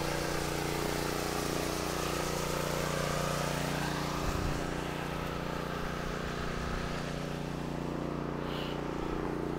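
A small engine running steadily at a constant speed, a continuous even drone.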